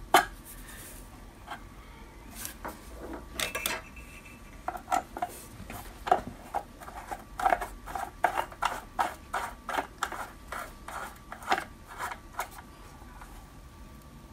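Metal clicks and clinks of a cap screw being fitted and turned with a hex key: a few separate knocks at first, then a run of quick clicks, about three a second, through the middle.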